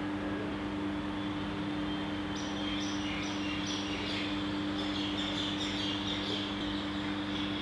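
A steady low hum with two held tones runs throughout, and from about two seconds in a bird chirps repeatedly in quick, high notes.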